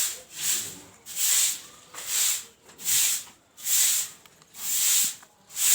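Repeated hand rubbing strokes, about seven of them at a steady pace of a little more than one a second, each a short scratchy hiss.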